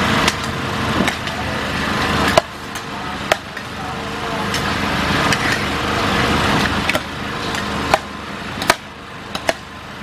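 Spatulas and a metal ladle knocking and scraping against a big wok as a heap of fried rice vermicelli and bean sprouts is tossed: irregular sharp knocks, roughly one a second, over a steady background hiss.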